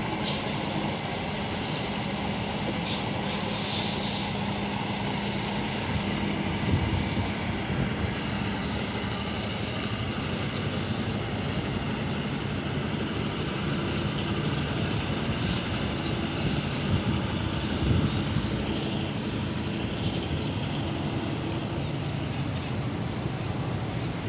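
Semi truck's diesel engine running at low speed as the tractor-trailer reverses into a dock, a steady hum under continuous rushing noise.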